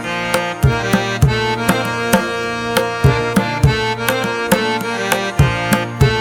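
Instrumental music: tabla beating a steady rhythm, about two strong strokes a second, under sustained melodic tones.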